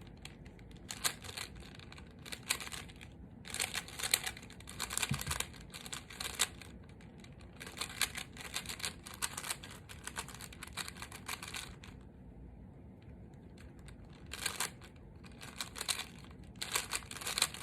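Speed cube being turned by hand: rapid bursts of plastic clicking and clacking as the layers are twisted, with a pause of about two seconds partway through.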